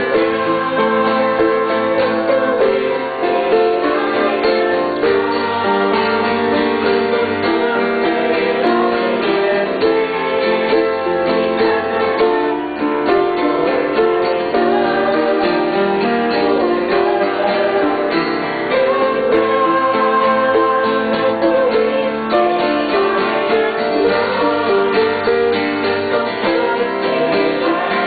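Music played on piano and guitar, carrying on steadily without a break.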